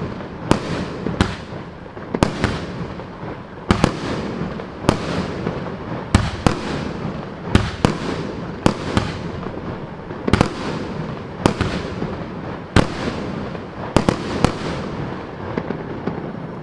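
Consumer fireworks cake of 30 mm shots firing a long run of sharp bangs, about one a second and sometimes two in quick succession. Each bang is followed by a hissing tail that fades. The shots stop a couple of seconds before the end, leaving only the tail dying away.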